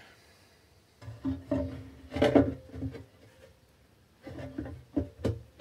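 Wooden board knocking and scraping against the steel of a cut-open compressor tank as it is pushed into the bottom of the cylinder, with sharper knocks about two seconds in and again near the end.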